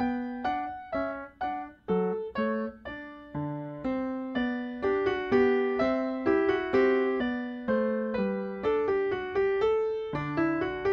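Background solo piano music: a classical piece at a moderate, even pace, a melody of distinct notes over a moving bass line.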